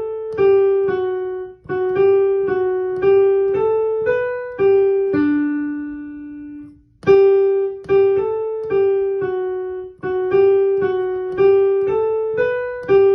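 Piano playing a simple melody one note at a time with the right hand alone, in the G major scale position. The phrase ends on a held lower note, then starts over about seven seconds in.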